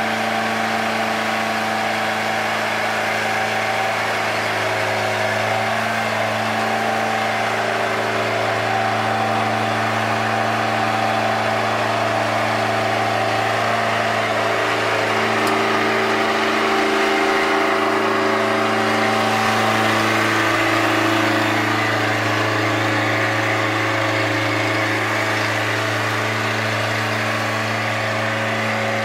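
Bobcat 751C skid steer's diesel engine running steadily, a little louder with slight pitch changes about two-thirds of the way through.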